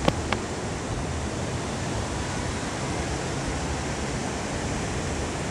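Surf washing onto a sandy beach, a steady rushing noise, with two short sharp clicks just after the start.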